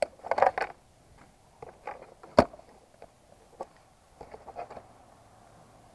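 Scattered clicks, knocks and rustles of someone handling a GPS unit, with one sharp click about two and a half seconds in.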